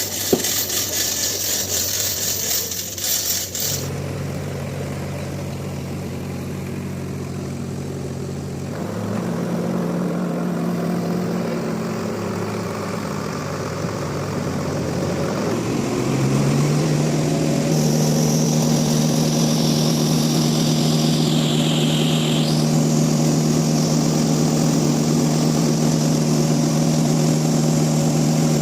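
A machine engine running steadily. It picks up to a higher, louder steady pitch a little over halfway through, with a faint high whine that slides downward shortly after.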